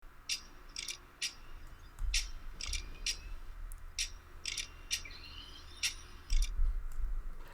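Irregular sharp metallic clicks, about a dozen, with a few soft low thumps, typical of a padlock and its keys being handled.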